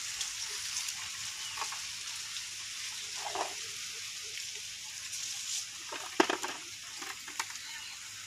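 Hot water draining out of a pot of boiled eggs through a cloth and splattering steadily onto bare soil, with a few sharp knocks, the loudest about six seconds in.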